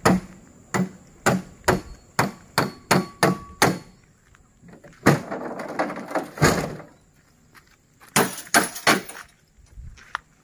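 A steel rod knocking against the metal tailgate and rack of a pickup truck: about ten sharp strikes in quick succession, then a longer rattling clatter as the tailgate is swung open, and a quick cluster of knocks near the end.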